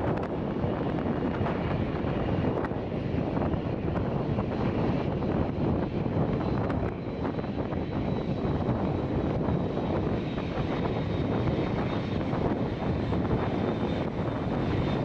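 Airliner jet engines on a landing approach, a steady rushing sound, with a faint high whine coming in about halfway through.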